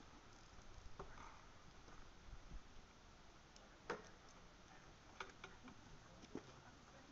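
Near silence with a few faint, scattered clicks and ticks, the clearest about four seconds in.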